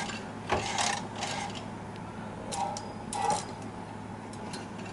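Short clicks and scrapes of the plastic and metal parts of a Silver Reed SK160 mid-gauge knitting machine being handled as the main yarn is threaded back, in two brief clusters in the first three and a half seconds.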